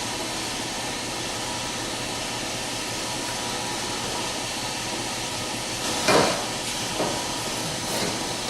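A steady hiss, with one louder knock about six seconds in and two lighter taps about a second apart after it.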